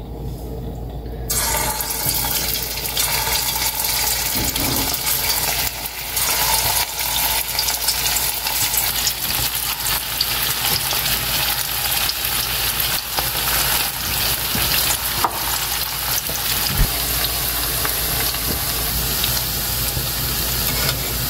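Hot oil sizzling as balls of vegetable Manchurian batter are dropped in and deep-fry, the sizzle starting abruptly about a second in and carrying on steadily.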